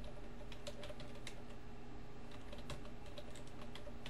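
Computer keyboard being typed on: a quick, irregular run of key clicks over a faint steady low hum.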